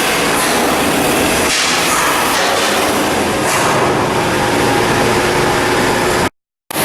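Loud, steady machinery noise of shipyard work on a steel hull block, cutting off into silence for a moment near the end.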